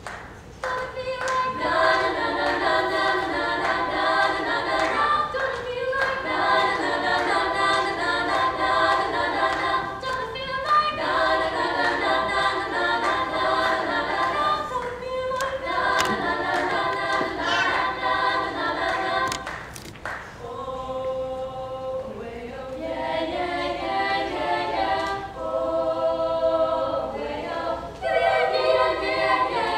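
Small female vocal ensemble singing a cappella in close harmony, in phrases separated by short breaths; the texture changes about two-thirds of the way through.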